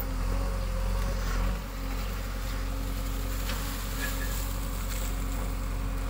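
JCB 3DX backhoe loader's diesel engine running steadily under load while the backhoe arm digs and lifts a bucket of soil, a continuous even drone.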